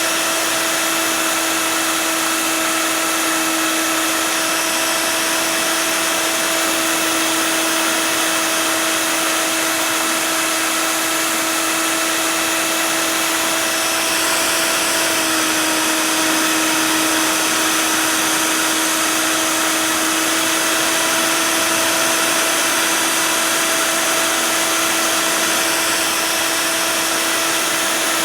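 CNC router spindle running steadily while cutting expanded PVC sheet: a constant whine over a hiss, its pitch shifting slightly about halfway through.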